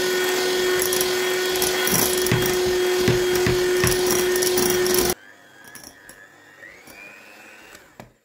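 Electric hand mixer running at speed, its beaters whipping egg whites in a glass bowl, with a steady motor hum. It cuts off suddenly about five seconds in, leaving only faint sounds.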